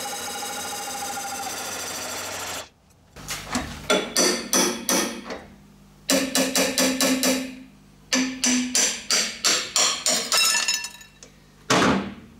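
A metal lathe's parting tool cuts into a thin metal wheel guard with a steady pitched whine, which cuts off sharply after about two and a half seconds. A hammer then taps the part-cut ring in quick runs of light ringing blows to knock it off, with one louder knock near the end as the ring comes free.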